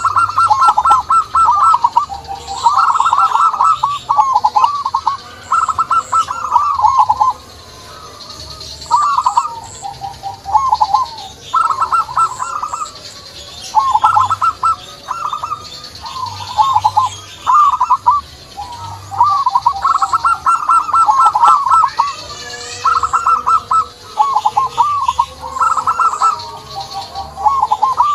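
Zebra doves (perkutut) cooing: rapid trilled coo phrases, each about a second long, repeated again and again with short gaps, over faint higher chirping from small birds.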